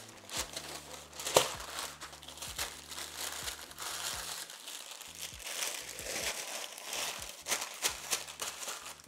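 Baking parchment crinkling and rustling in irregular crackles as it is folded and pressed around a block of puff pastry dough, the sharpest crackle about a second and a half in.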